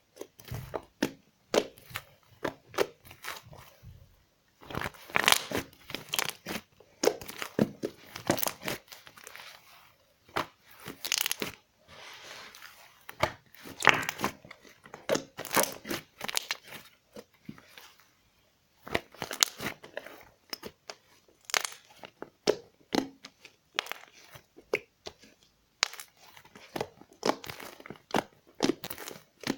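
Slime being squeezed and pressed by hand, giving irregular crackling pops and clicks.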